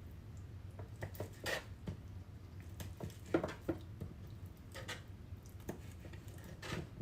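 Kitchen dishes and utensils knocking and clinking lightly a handful of times, irregularly, during food preparation, over a low steady hum.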